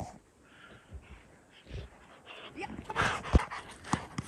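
A dog pushing through deep snow: breathy snuffling and panting, then from about three seconds in louder crunching of snow with a sharp thump.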